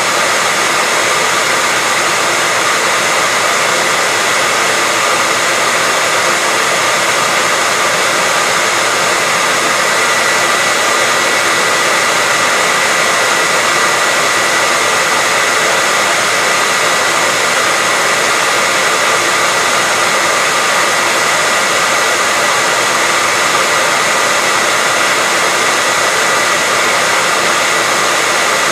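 Hair dryer running steadily: an even blowing hiss with a faint high whine, unchanging throughout.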